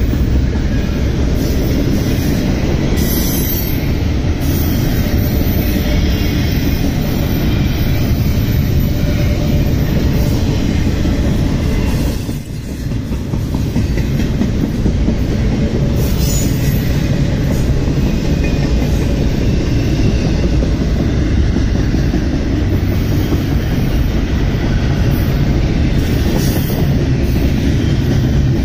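CSX double-stack intermodal freight train passing close by: the steady rumble and rattle of the container well cars' wheels on the rails, with clickety-clack over the rail joints. The noise dips briefly about halfway through.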